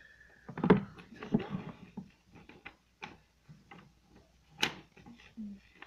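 Handling noise: scattered clicks and knocks from a hand-held phone and a sheet of paper, with a sharp knock about a second in and another a little before the end.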